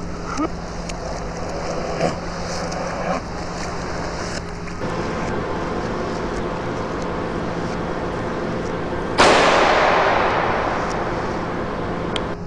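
Steady rushing noise with a few light knocks, then a sudden loud crash about nine seconds in that dies away over about three seconds.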